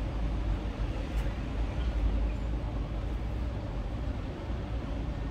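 Steady urban street background noise with a constant low rumble, typical of traffic.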